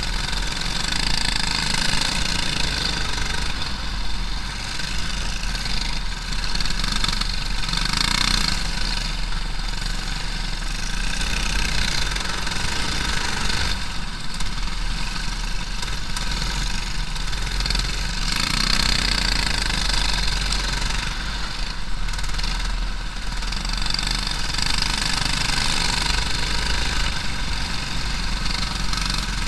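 Briggs & Stratton LO206 single-cylinder four-stroke kart engines running hard at racing speed, heard from the kart's onboard camera, mixed with a steady rush of wind noise. The level stays steady throughout.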